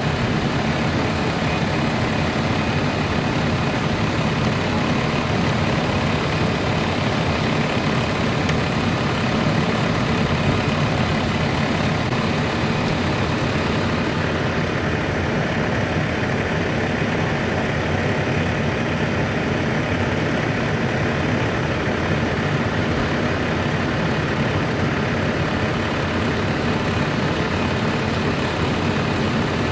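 A vehicle engine idling steadily under a constant hiss.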